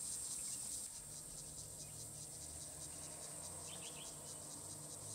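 A steady, high-pitched chorus of insects trilling with a quick, even pulse, about eight or nine beats a second. A faint low hum lies underneath, and a few brief high chirps come just before four seconds in.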